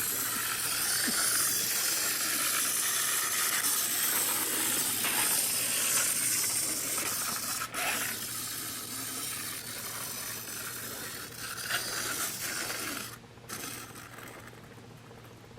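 Tomy wind-up Diesel 10 toy engine's clockwork motor whirring with a fine ticking as it runs along the track, growing quieter from about ten seconds in and dying away near the end as it runs down.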